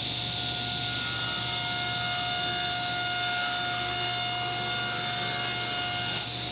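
Table saw ripping a thin plywood sheet: a steady blade whine over the sound of the cut. The cutting sound drops back near the end, leaving the blade spinning.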